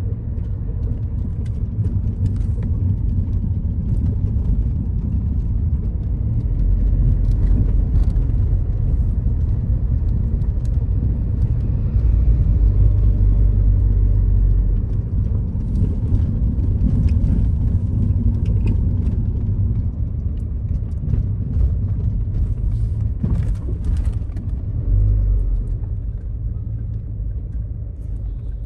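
Low rumble of a car driving slowly, heard from inside the cabin: engine and road noise that swells and eases.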